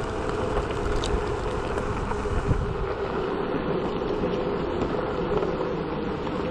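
Navee N65 500 W electric scooter riding at a steady speed: wind buffeting the microphone and rumble from the road, with a steady motor hum.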